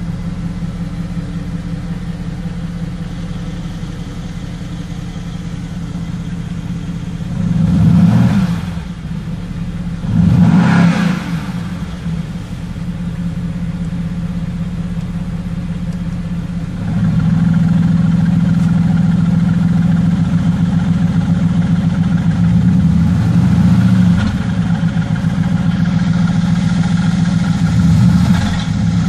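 Mercedes-AMG GT S's 4.0-litre twin-turbo V8 idling in Park, heard from inside the cabin, with two quick throttle blips a few seconds apart about a third of the way in. Past the halfway point the idle steps up louder, and two smaller blips follow.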